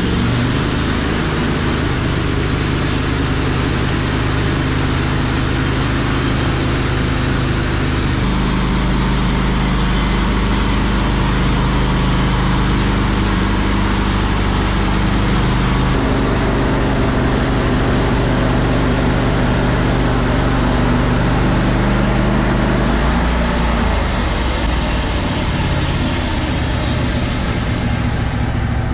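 Wood-Mizer LT15 Wide portable bandsaw mill running steadily, its engine under load as the band blade cuts lengthwise through an ash log. The engine note shifts a few times, about 8, 16 and 23 seconds in.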